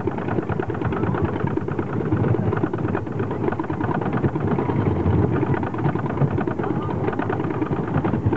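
Wooden roller coaster train being hauled up the lift hill, its chain lift and anti-rollback ratchet clattering in a steady rapid run of clicks.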